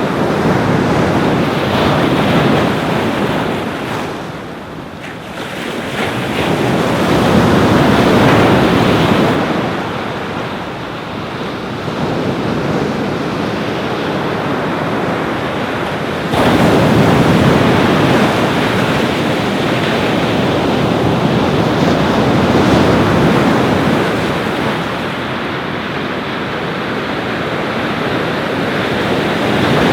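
Ocean surf breaking on a beach, swelling and falling back every several seconds, with wind rumbling on the microphone; it gets louder abruptly a little past halfway.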